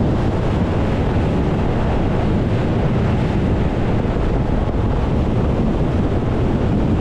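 Steady rush of wind buffeting the microphone over the churning wake and spray of a 24 ft bay boat running fast across open water.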